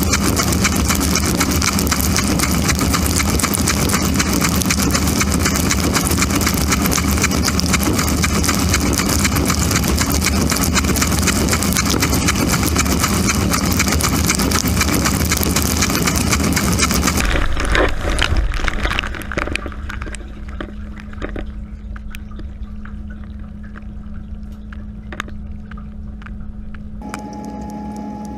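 Dishwasher wash cycle heard from inside the tub: loud, steady spray of water from the spray arms with the pump running, which stops abruptly about two-thirds of the way through. A quieter steady motor hum remains, with scattered clicks and drips, and a second, higher hum joins near the end.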